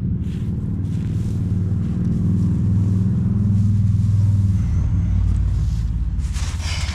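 A low engine rumble that swells to a peak about four seconds in and then fades, with a brief rustle near the end.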